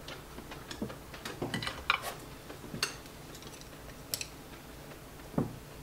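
Chopsticks clicking and tapping against ceramic bowls and plates as food is picked up and served, in scattered irregular clicks, with a duller knock near the end.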